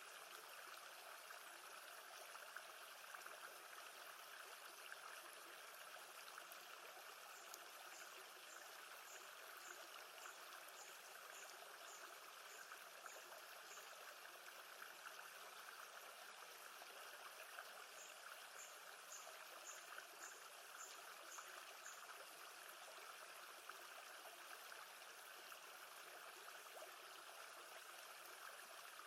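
Faint, steady sound of calm lake water. Twice, a run of short high chirps, about two a second, comes over it for several seconds.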